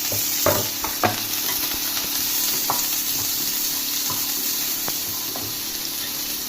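Sliced onions sizzling in hot olive oil in a pan, a steady frying hiss. A few sharp knocks in the first second or so, from stirring in the pan.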